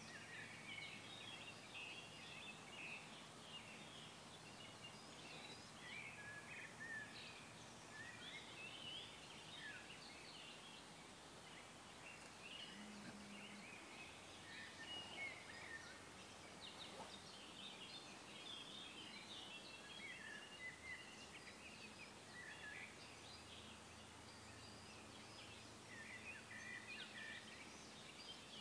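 Faint songbirds singing and chirping without a break, several short warbling phrases overlapping, over a soft background hiss.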